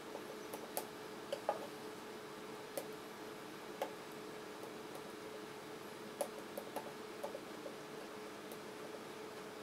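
Palette knife working oil paint on a panel: scattered, irregular light clicks and taps of the blade against the surface, over a faint steady hum.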